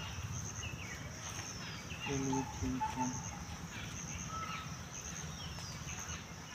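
Crickets chirping in short high-pitched pulses repeating about once a second, with a few short falling bird calls, and a brief distant call of three short syllables about two seconds in.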